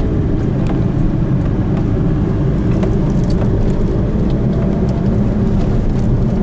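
Steady low rumble of road and engine noise inside a car driving along a desert highway, with a few faint ticks.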